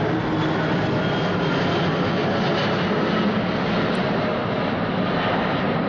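Twin jet engines of a Boeing 777 airliner passing low overhead on approach with its landing gear down: a loud, steady rush of jet noise with a faint high whine.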